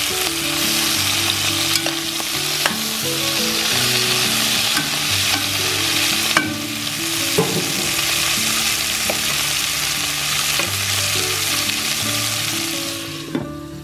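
Squirrel meat, onion and tomato sizzling in a pot while being stirred and turned with metal tongs, which clack against the pot a few times. The sizzle dies down near the end.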